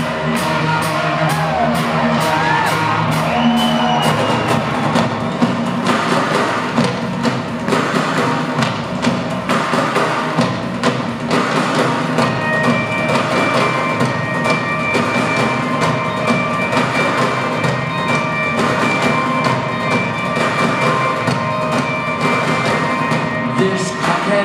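Live rock band playing an instrumental passage: drum kit, electric guitars and keyboards, heard from among the audience. A sustained high note comes in about halfway through.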